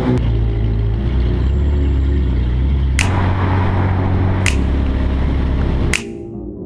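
Electronic music with a heavy, steady bass that changes note in blocks, marked by a sharp hit every second and a half or so. The bass drops out after about six seconds, leaving a lighter sound.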